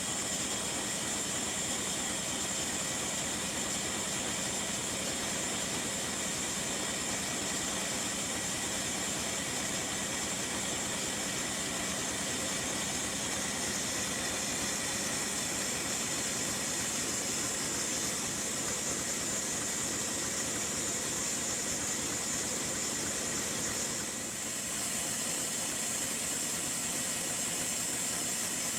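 The 1917 MAN F6V35 six-cylinder four-stroke diesel runs steadily under load while driving a generator, with a strong high hiss over the engine noise. The sound dips briefly about three quarters of the way through.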